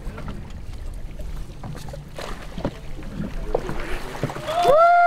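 Water splashing and dripping with scattered small knocks as a fishing net full of opelu is hauled up against the boat's hull, over a low rumble. Near the end a person's voice breaks in with a loud, long call.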